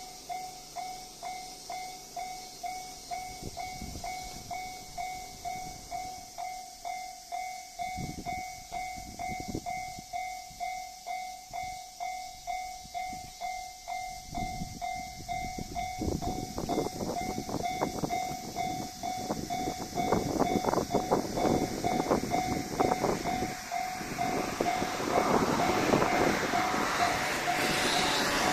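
Level-crossing warning bell ringing, a steady electronic ding a bit more than once a second, while a 1500-series diesel railcar approaches. Its wheels clatter over the rail joints, getting denser and louder from about halfway, and the railcar passes the crossing with a loud rush of noise near the end.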